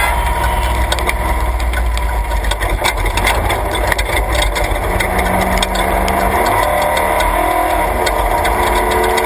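Class 3 off-road race truck's engine heard from inside the cab as it drives off. Its pitch rises from about five seconds in as it accelerates, with rattles and clicks from the cab throughout.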